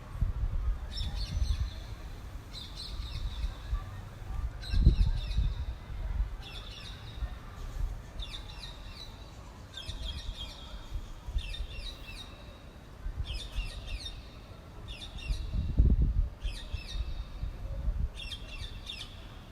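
A bird repeats a short chirping phrase of quick falling notes about every second and a half. Underneath, wind buffets the phone's microphone in a low rumble, with strong gusts about five seconds in and again near sixteen seconds.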